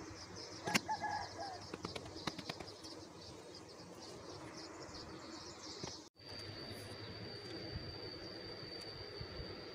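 Faint outdoor ambience with birds calling and a steady high insect-like hiss. A few sharp clicks and rustles come in the first couple of seconds, the loudest about a second in. About six seconds in the sound cuts out abruptly, and afterwards a steady high whine holds over the background.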